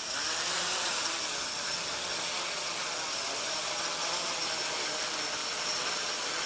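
Electric quadcopter's motors and 10-inch propellers running at takeoff and low hover: a steady whirring hiss with a propeller hum that wavers up and down in pitch as the throttle shifts.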